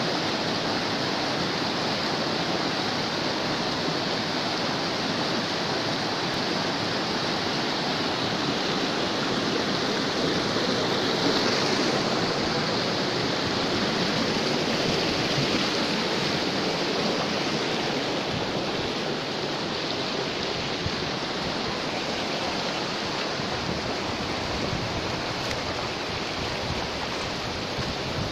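Mountain stream rushing and splashing over boulders in a steady, unbroken wash of water noise, a little louder around the middle.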